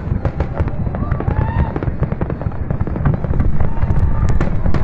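Fireworks display: many bangs and crackles in quick, overlapping succession over a continuous low rumble.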